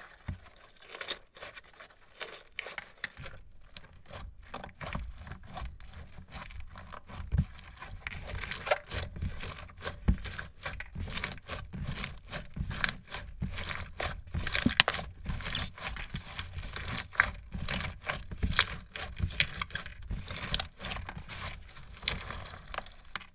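Hands squeezing and kneading crunchy slime, giving a run of irregular crackles and pops with squishy thumps as it is pressed. The crackles are sparse at first and come thick and fast from about four seconds in.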